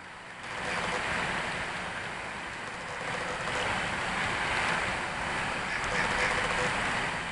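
HO scale model hopper cars rolling past close by: a steady rushing of small wheels on the rails that swells up about a second in.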